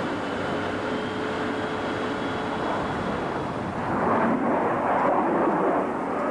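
Turbofan jet aircraft in low flight: a steady rushing engine and air noise that grows louder about four seconds in.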